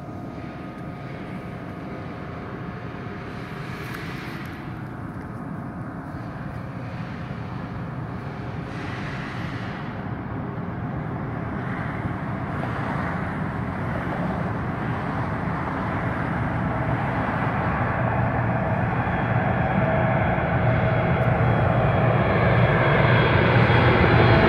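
Boeing 747-8F freighter's four GEnx turbofans on final approach, growing steadily louder as the jet comes in low overhead with a steady whine over the rushing engine noise.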